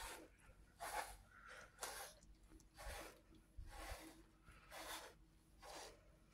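A pet brush stroking through a cat's fur: soft, scratchy swishes, one about every second.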